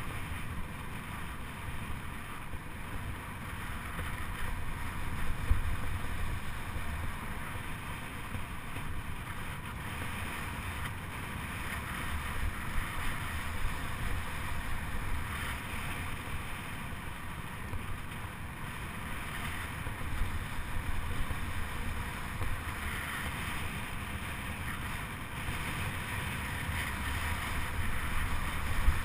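Wind rushing over the microphone with a steady low rumble, as from a track bike riding round the velodrome.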